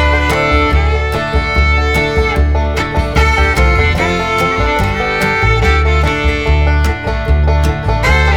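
Background bluegrass music with fiddle, guitar and banjo over a steady bass beat.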